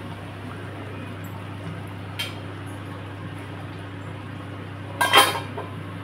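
Steel lid set down onto a steel curry pan with a short metallic clatter near the end, after a single light tap of the steel spatula against the pan about two seconds in. A steady low hum runs underneath.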